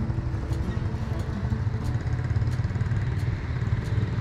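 Low, steady rumble of a road vehicle's engine running, with faint regular ticks above it.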